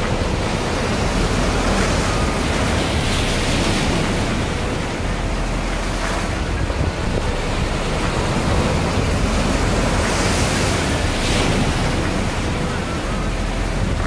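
Sea waves breaking over rocks and washing across the stony shore, a continuous surf that swells about three seconds in and again about ten seconds in. Wind buffets the microphone underneath.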